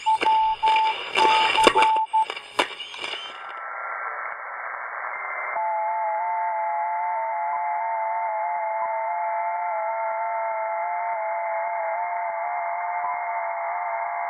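A keyed Morse-code beep over crackling static for the first two seconds. Then a shortwave receiver's narrow audio, band hiss at first, and from about five seconds in several FT8 digital signals on the 20-metre band: steady tones that hop between pitches in small steps, all sounding together.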